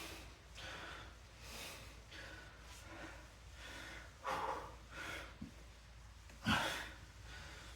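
A man breathing hard and rhythmically while straining through side-plank reps, about one breath a second, with two louder, forceful exhalations about four and six and a half seconds in.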